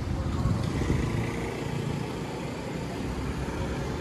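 Road traffic going by: a low, steady engine rumble, a little louder in the first second or so.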